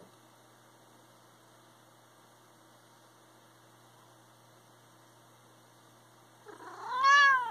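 Domestic cat meowing once near the end: a long call that rises and then falls in pitch, after several seconds of only a faint steady hum.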